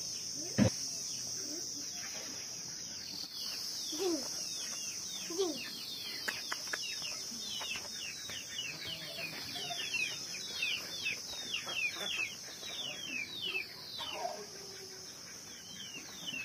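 Outdoor village ambience: insects keep up a steady high buzz while birds give a long run of quick, downward-sliding chirps. A few lower falling calls come around four and five seconds in, and there is a single sharp knock about half a second in.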